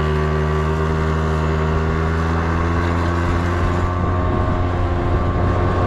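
Yamaha Vino scooter's small two-stroke engine running at a steady, nearly unchanging pitch under throttle as the scooter pulls away from a stop. The engine sounds sluggish getting up to 20 mph.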